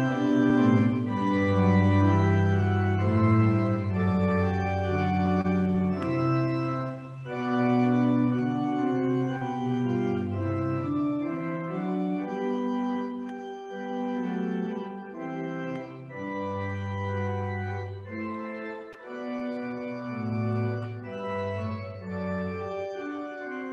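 Organ playing a slow prelude in sustained chords over long-held bass notes, the harmony changing every second or two.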